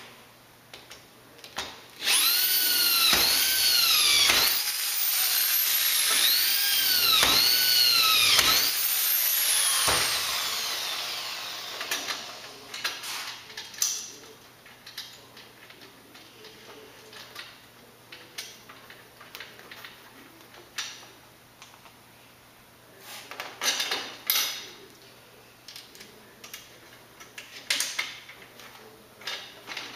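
Handheld power drill run in several squeezes of the trigger, its whine rising and falling in pitch with each one, then winding down with a falling whine about ten seconds in. Scattered light clicks and knocks follow.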